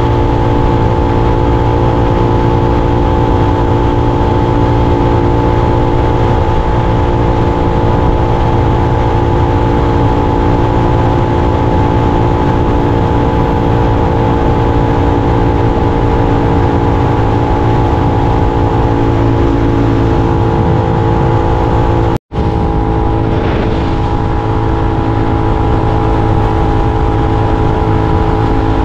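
Suzuki SV650X's 645 cc V-twin with a Scorpion aftermarket exhaust, running at a steady highway cruise with its pitch holding nearly constant, under heavy wind noise. The sound cuts out for an instant about three quarters of the way through.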